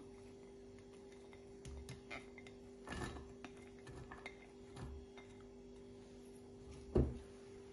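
Soft scrapes and light knocks of a silicone spatula pushing chopped onion and garlic off a plate into a nonstick saucepan, with one sharper knock near the end. A steady low hum runs underneath.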